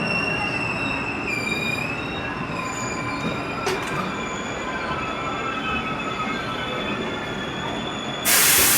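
Passenger train running, its wheels squealing on the rails in steady high-pitched tones that waver slightly, over a continuous rumble. Near the end a sudden loud hiss cuts in.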